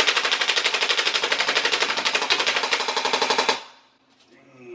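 Battery-powered airsoft AK-74U firing a single full-auto burst, a fast even stream of shots that stops about three and a half seconds in.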